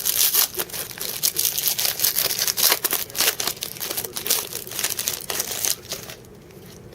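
Trading-card pack wrapper crinkling and tearing as a pack is opened by hand, a dense run of crackles that stops about six seconds in.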